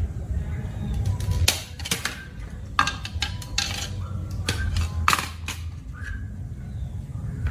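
Small hand-held parts and tools clicking, scraping and clattering as a broken hair dryer is taken apart, over a steady low rumble.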